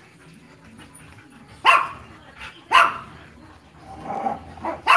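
Small dogs barking in a cage: two sharp barks about a second apart, then quicker, busier barking starting near the end.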